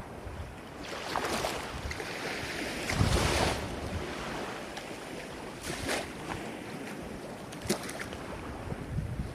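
Ocean waves breaking and washing in, rising to a larger surge about three seconds in, with brief splashes later on and wind rumbling on the microphone.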